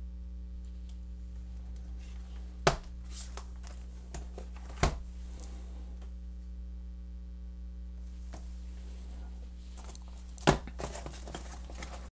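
Acer C720 Chromebook being handled: turned over and set down on a table, giving three sharp knocks, one near three seconds in, one about five seconds in and the loudest near the end, with light rustling of hands and packaging. A steady electrical hum runs underneath.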